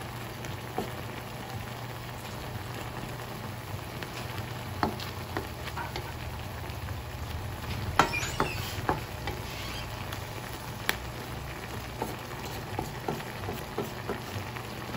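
Shrimp and bell peppers sizzling in sauce in a metal wok, a steady frying hiss. Scattered clicks and scrapes of a wooden spatula stirring against the pan break through it, the loudest knock about eight seconds in.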